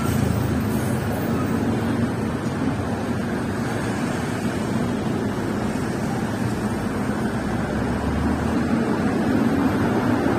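Steady rumble of city street traffic, swelling slightly near the end.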